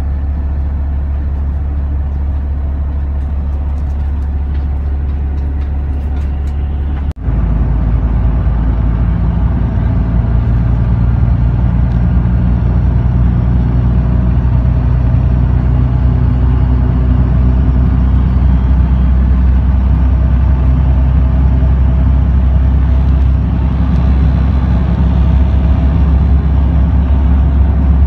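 Steady low rumble of a moving road vehicle heard from inside the cabin: engine and road noise at speed. About seven seconds in the sound drops out for a moment and comes back a little louder.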